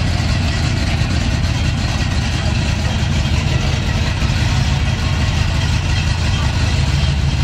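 Box Chevy Caprice's engine running steadily at low speed as the car rolls slowly along, with a heavy low exhaust note.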